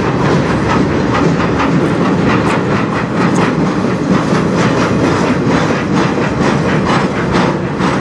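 Freight train of empty flatcars rolling steadily past, a continuous rumble of steel wheels on rail with many sharp wheel clicks.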